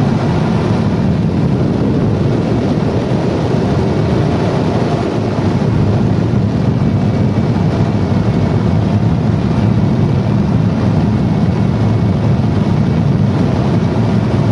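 Steady rush of air around a glider in flight, heard from inside the cockpit.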